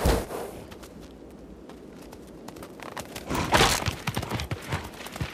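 Bighorn rams fighting in the rut. A single loud crack of horns at the start, then about three and a half seconds in a short burst of scuffling hooves and knocks on frozen, snowy ground as the rams shove head to head.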